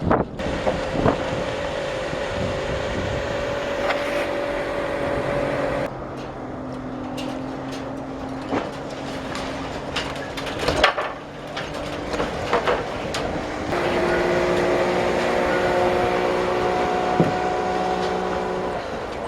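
A motor or machine running with a steady hum. Its pitch shifts to a new level a few times, and there are scattered sharp clicks and knocks.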